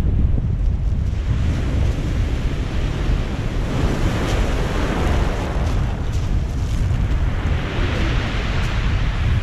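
Surf breaking and washing up a pebble beach, with heavy wind buffeting the microphone as a constant low rumble. The wash of the waves swells about four seconds in and again near the end.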